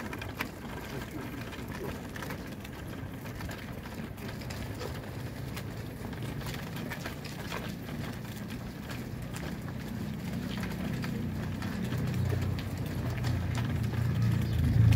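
A wheelchair rolling and people walking on an asphalt lane, with light clicking and rattling from the wheels and steps. A low rumble builds up and grows louder near the end.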